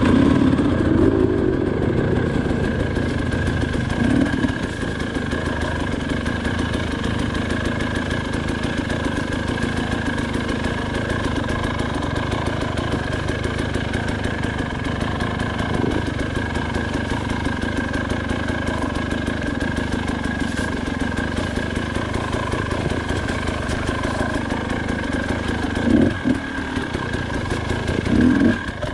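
Two-stroke KTM 300 XC-W enduro bike engine running at low, fairly even revs, with a couple of short throttle blips near the end.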